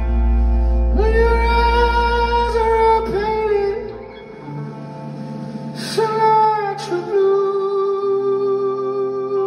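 Live band playing a slow song: long held sung notes over sustained keyboard chords, with a deep bass drone that drops out about four seconds in.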